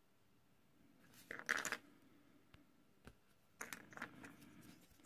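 Handling noises: two short bursts of scraping and clicking, about a second in and again near the middle, with a couple of single light ticks between them.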